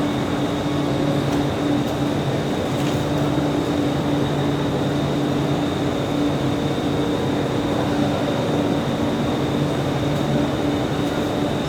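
Automatic book shrink-wrapping machine running: a steady mechanical hum with a thin, constant high whine.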